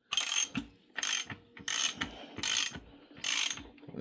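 Ratchet wrench clicking in about five strokes, roughly one every 0.7 seconds.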